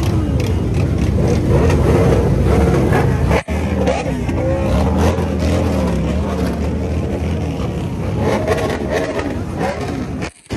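A stream of motorcycles riding past one after another, engines running and revving, with rising and falling pitch as bikes go by. The sound cuts out briefly twice.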